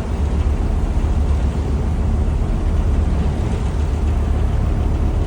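Steady rumble of a Mersey ferry under way mixed with wind buffeting the microphone: a heavy, unbroken low rumble with a hiss above it.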